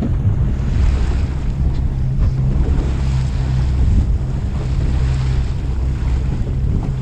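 Fishing boat's engine running with a steady low drone, with wind buffeting the microphone and water washing along the hull.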